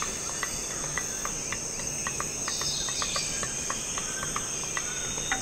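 Steady high-pitched drone of insects, with short chirps scattered through it.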